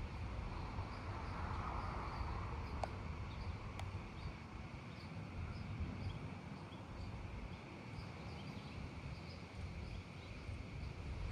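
Outdoor neighborhood ambience: a steady low rumble under faint, high, short chirps that repeat about twice a second. Two sharp clicks come about three and four seconds in.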